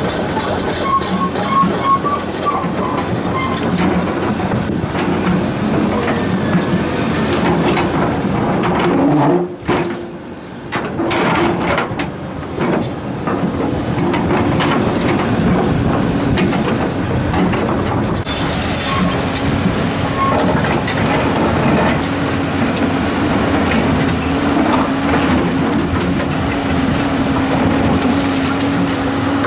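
Komatsu hydraulic excavators working rock, the engine running steadily under load with a continuous hum. A cluster of knocks comes around the middle, and the engine note briefly drops there.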